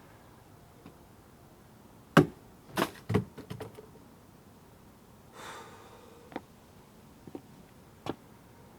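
Several sharp thuds and knocks: a loud one about two seconds in, a quick cluster of them just after, then a few scattered lighter taps and a short rustle.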